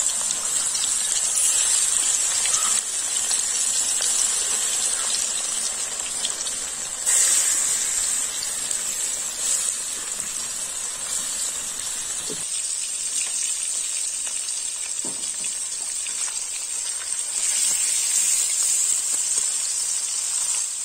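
Carp pieces sizzling as they fry in hot oil in a kadai: a steady, loud hiss with a louder surge about seven seconds in and a couple of faint knocks later.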